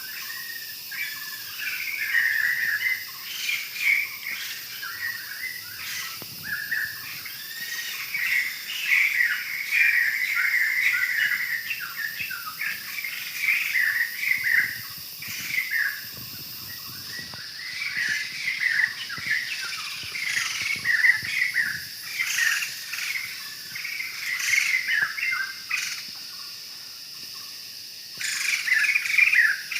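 Forest birds chattering and calling in quick, repeated chirps, with a brief lull near the end, over a steady high-pitched insect drone.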